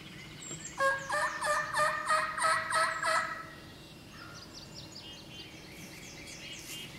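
A wild turkey gobbler gobbles once, a rapid rattling gobble of about two and a half seconds starting about a second in. Small songbirds chirp faintly throughout.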